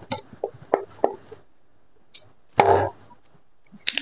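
A 2-litre plastic bottle being cut with a sharp knife: scattered clicks and crackles of the plastic in the first second or so, then one short, louder crunch about two and a half seconds in.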